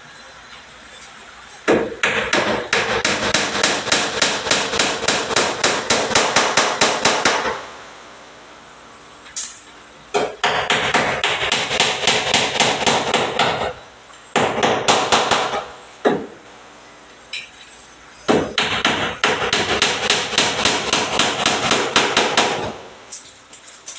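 Hammering on a construction job: rapid, evenly paced strikes, about five a second, in four long runs with short pauses between.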